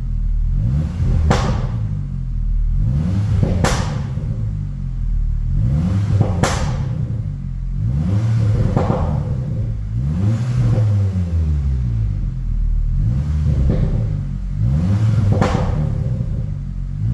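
Volkswagen Golf Mk5 GTI's turbocharged 2.0-litre four-cylinder is revved in short throttle blips about every two to three seconds. As each rev falls away, the exhaust gives sharp pops and crackles on the overrun, from a tuned pop-and-crackle map switched on with the AC button.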